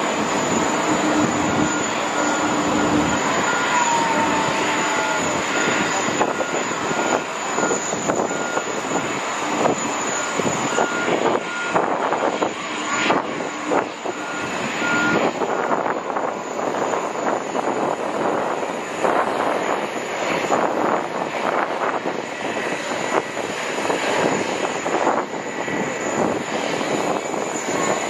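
Airbus A321neo's jet engines at takeoff power during the takeoff roll and lift-off, a continuous rushing noise that flutters and crackles in loudness.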